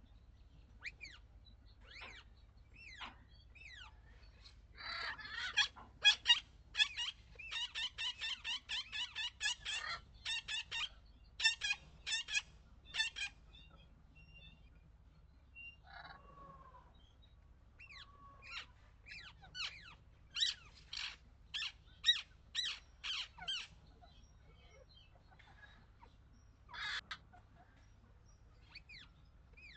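Birds calling: runs of quick, sharp chirps, densest from about five to thirteen seconds in and again around twenty to twenty-four seconds, with a lower drawn-out call near the middle.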